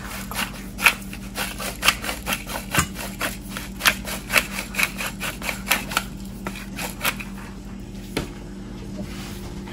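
Hand-twisted stainless steel pepper mill grinding cracked black pepper: a rapid run of crunching clicks, about four or five a second, that stops about seven seconds in.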